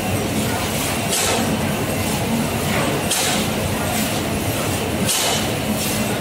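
Ice cream bar production line machinery running, a steady hum with a hiss coming about every two seconds.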